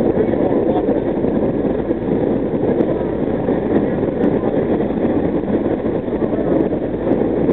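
Vintage New York City subway train running through a tunnel: a steady, loud noise of wheels on rails and the moving cars, echoing off the tunnel walls.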